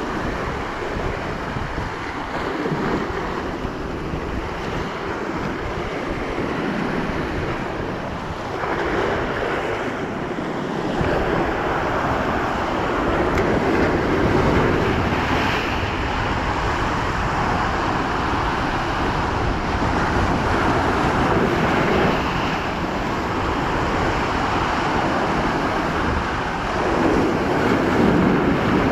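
Ocean surf breaking and washing over coastal rocks, rising and falling in slow surges, with a louder surge near the end. Wind buffets the microphone throughout.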